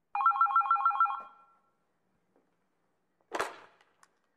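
A rapid electronic telephone-style ringing trill, two tones alternating, lasting about a second, then a single short whoosh about three seconds in. These are sound effects laid into the edit over silent footage, with the whoosh coming as a 'FOLLOW' button slides onto the screen.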